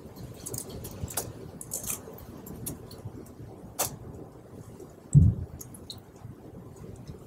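Laptop keyboard typing: scattered, irregular key clicks with a few sharper taps, and a single dull low thump about five seconds in.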